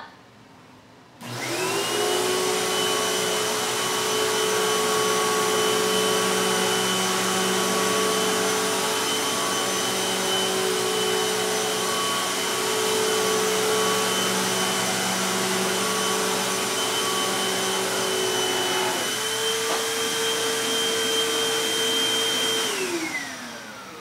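Hoover WindTunnel upright vacuum cleaner switched on about a second in, its motor whining up to speed and then running steadily with a high whine over a hum while picking up shredded paper from carpet. Its pitch steps up slightly about three quarters of the way through, and near the end it is switched off and winds down with a falling whine.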